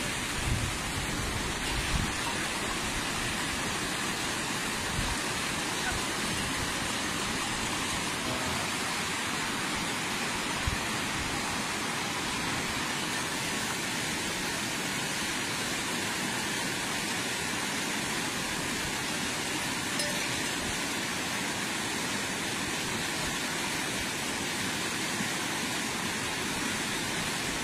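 Steady rush of river water, with a few brief low thumps in the first two seconds and once near the middle.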